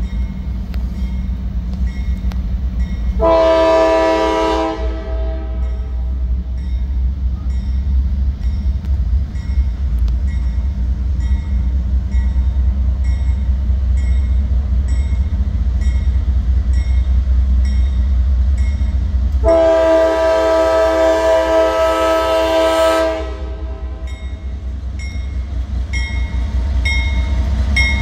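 Approaching Norfolk Southern diesel freight locomotive sounding its multi-note air horn at a grade crossing: a short blast about three seconds in and a longer blast of about three and a half seconds later on. Under the horn the diesel engine rumbles steadily, and a bell dings about twice a second.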